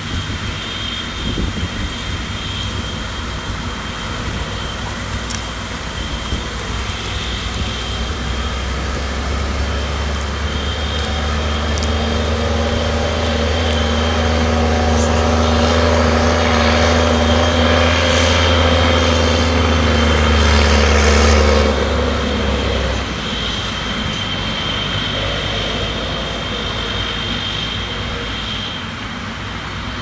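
Case IH tractor's diesel engine running steadily as it tows a forage trailer along a farm track and into the field. It grows louder, is loudest from about 13 to 22 seconds in, then drops off suddenly. A thin, high, steady whine sounds in the background.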